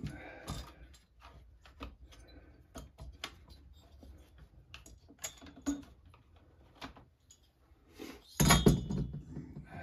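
Scattered metal clicks, clinks and rattles as a two-stroke chainsaw's cylinder is worked loose and lifted off during a top-end teardown, with one louder clunk about eight and a half seconds in.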